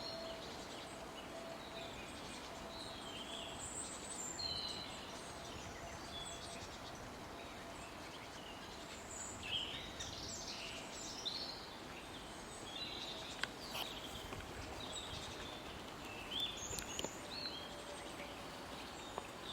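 Several small birds chirping and singing in short, scattered calls over a steady background hiss of forest ambience, with a faint steady tone underneath.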